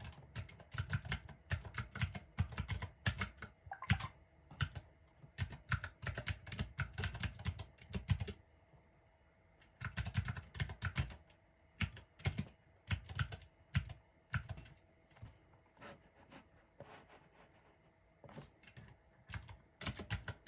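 Typing on a mechanical keyboard: quick runs of key clacks, a short pause about halfway through, then only a few scattered keystrokes in the last third.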